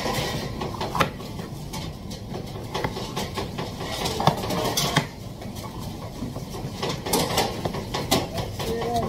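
Chef's knife slicing bell peppers on a plastic cutting board: irregular taps of the blade against the board, over steady background noise.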